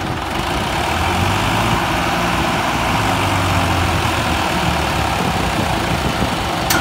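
Two diesel tractor engines, a Farmtrac 60 T20 and a Massey Ferguson 9500, running hard under load as they pull against each other in a tug of war, a loud, steady low drone. A short sharp click near the end.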